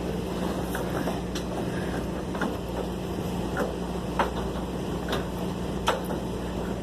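Steady low hum of running machinery, with scattered light knocks and clicks over it.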